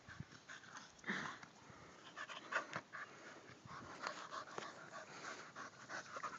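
Dogs panting faintly at close range, with short scuffling rustles and knocks as they move around on grass.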